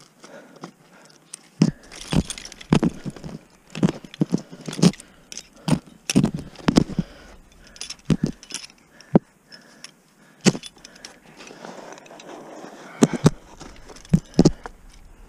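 Ice climbing gear: a run of irregular sharp knocks and clinks of metal on ice, with carabiners and other hardware jangling. The knocks come thick for several seconds, then more sparsely.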